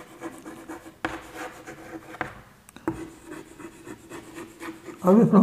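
Chalk scratching across a chalkboard as words are written, with a few sharp taps of the chalk against the board.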